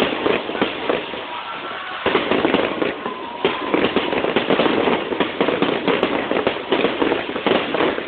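Fireworks going off in a dense, continuous crackle of rapid pops, easing slightly for a moment and picking up again about two seconds in.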